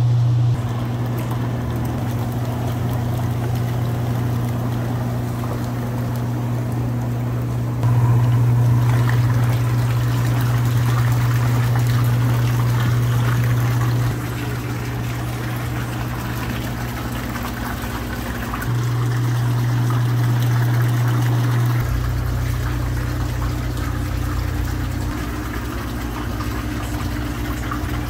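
Arctic Spas Fox hot tub with its jet pumps running: water churning and bubbling over a steady low motor hum. The level steps up and down several times.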